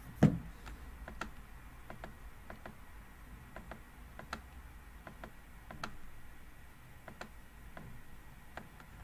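Computer mouse clicking, sharp single clicks at an uneven pace of about two or three a second, as parts are placed on screen. A louder dull thump about a quarter second in is the loudest sound.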